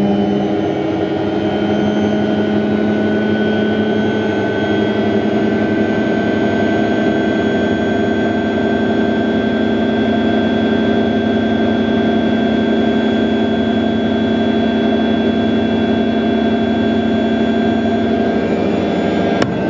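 Hotpoint Electronic 1000 Plus 9534 washing machine running, a loud steady motor hum with a higher whine that drifts slightly in pitch. A few sharp clicks come right at the end.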